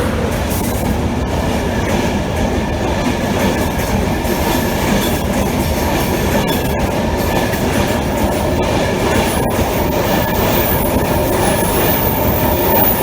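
East Coast InterCity 225 set, Class 91 electric locomotive 91109 and its Mark 4 coaches, running through the station: loud, steady wheel-and-rail noise from the passing coaches.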